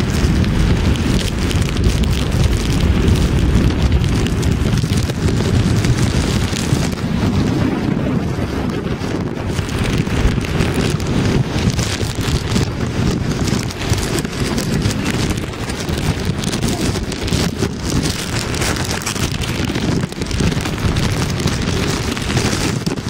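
Hurricane wind buffeting the microphone in a loud, steady low rumble, with rain hitting the camera.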